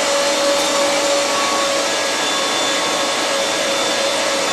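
Arçelik K 1766 1400 W electric meat grinder running steadily while mincing meat through its plate: a constant motor hum over an even whirring hiss.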